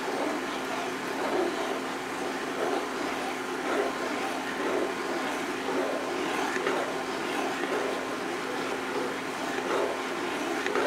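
A spoon stirring thick chicken pot pie gravy in a nonstick frying pan, a soft scraping swish with each stroke about once a second, over the steady hum of a NuWave induction cooktop.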